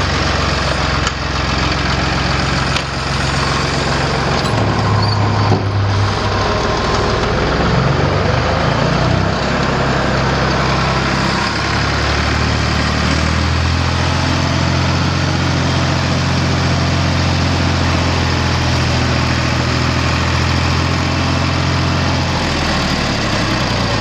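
1983 Ford 2810 tractor's three-cylinder diesel engine running as the tractor backs out and drives off. The engine speeds up briefly about five seconds in, wavers, then runs steady at a lower, even note for the second half.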